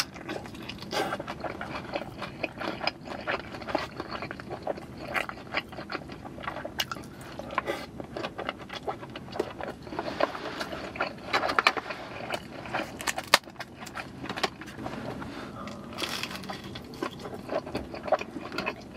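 Close-up eating sounds of birria tacos being bitten and chewed: a steady run of wet crunches, smacks and small clicks from the fried tortillas and meat in the mouth, busiest in the middle.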